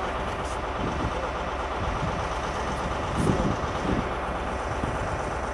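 Steady running of diesel train engines idling, with one brief louder sound a little over three seconds in.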